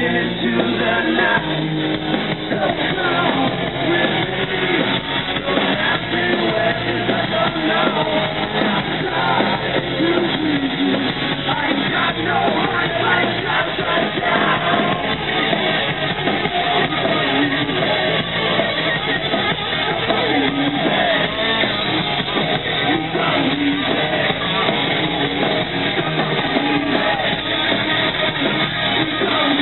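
Hard rock band playing live at full volume, with electric guitars, bass and drums, heard from the crowd. The sound is dull and muffled, with no high end and little deep bass.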